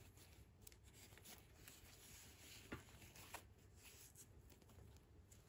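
Near silence with faint rustling of fingers handling a plastic fashion doll and its hair, and two small clicks about halfway through.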